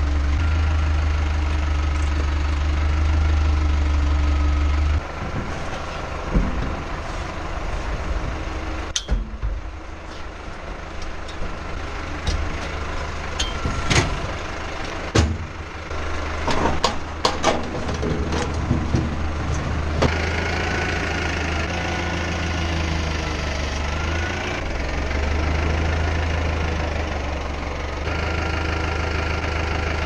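Tractor diesel engine idling steadily, loud and close for the first five seconds as if heard from inside the cab, then lower. From about six seconds in, a run of sharp metal clanks and knocks comes from a hand pallet truck being handled on the steel trailer bed. It is busiest between about 14 and 20 seconds.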